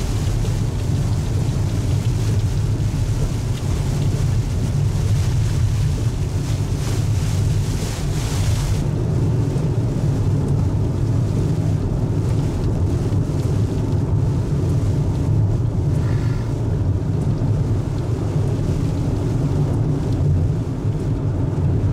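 A car driving on a wet road in the rain, heard from inside the cabin: a steady low road rumble under the hiss of rain and wet tyres. The high hiss falls away sharply about nine seconds in, leaving mostly the rumble.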